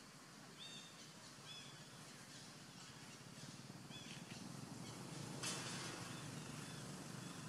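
Quiet forest ambience with short, high chirping calls repeated several times, and a brief noisy burst about five and a half seconds in.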